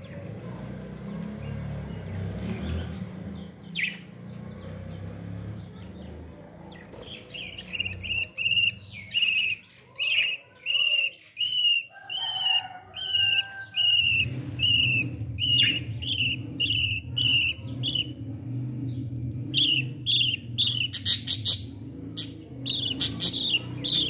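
Budgerigars chirping: a long series of short, sharp chirps at about two a second, starting several seconds in and coming faster near the end, over a low steady hum.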